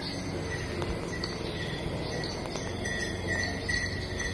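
Insect chirping: a short high note repeated in a steady rhythm, stronger in the second half, over a low steady background noise.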